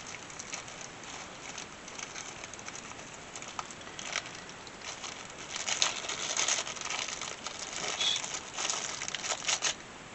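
Rustling and crackling with scattered small clicks as the small USB-charged fill lights and their packaging are handled and sorted. It comes in irregular spells, busiest about four seconds in and again from about six to nine and a half seconds in.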